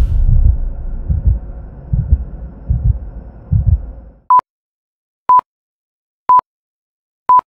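Intro sound effects: deep pulsing thumps like a heartbeat, about one every 0.8 s over a faint hum, stop about four seconds in. Four short electronic beeps then follow, one per second, like a countdown.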